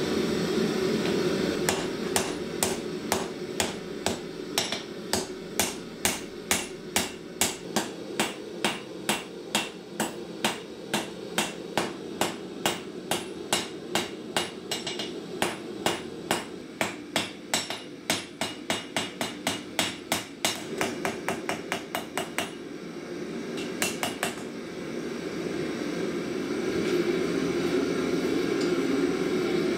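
Hand hammer striking red-hot file steel on an anvil, a steady run of blows at about two to three a second for some twenty seconds, then two more after a short pause. Under it, and alone near the end, the gas forge's burners run with a steady roar.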